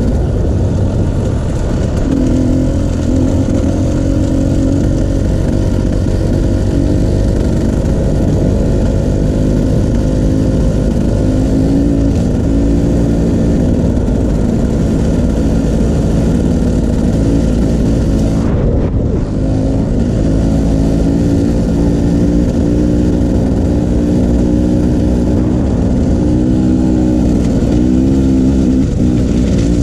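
Dirt bike engine running while riding a trail, the revs repeatedly rising and falling with the throttle, with a short let-off about two-thirds of the way through.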